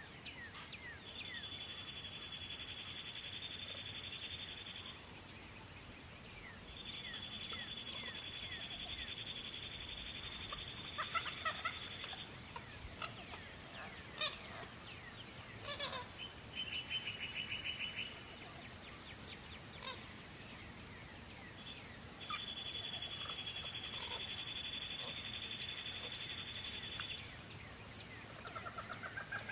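Crickets chirping in a steady, high-pitched chorus at dusk. A lower trill comes and goes three times, each lasting several seconds, and short bird chirps are scattered over it.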